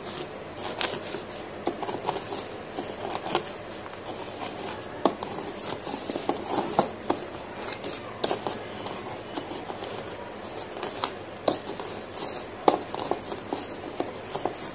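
Wet crumbled slate pencil pieces being pressed and ground in a bowl: irregular gritty crunching and squishing, with sharp cracks as pieces break.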